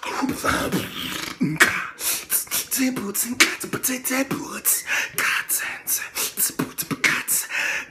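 Dubstep-style beatboxing by a man: rapid rhythmic clicks and hissing hi-hat-like strokes, mixed with short pitched vocal bass sounds.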